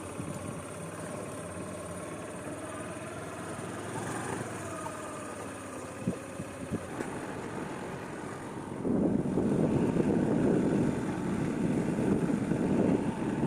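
A vehicle running with a steady whine that wavers slightly in pitch. About nine seconds in, a loud rushing noise swells up and lasts some four seconds.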